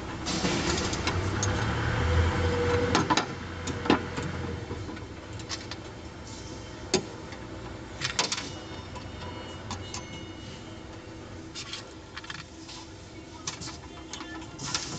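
Scattered metal clicks and knocks as steel angle bars are bolted by hand onto panels, with nuts and bolts clinking against the steel. A louder stretch of rustling and a low hum comes in the first few seconds.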